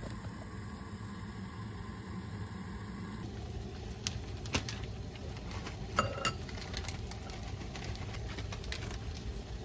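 Steady low mechanical hum, like a kitchen appliance running. After a cut about three seconds in come light clicks and clinks of kitchen handling, including a spoon ringing twice against a ceramic bowl of corn around the middle.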